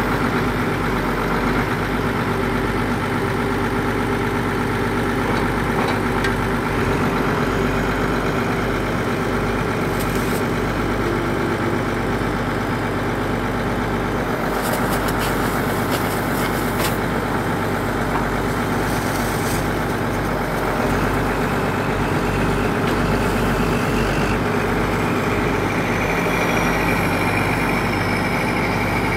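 Excavator's diesel engine running steadily as the machine works its arm, with a few faint clicks around the middle and a higher steady tone joining near the end.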